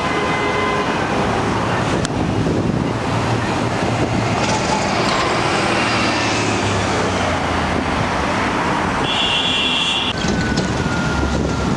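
Busy street traffic, with the engines of city buses running as they pull away. A short high beep comes about nine seconds in.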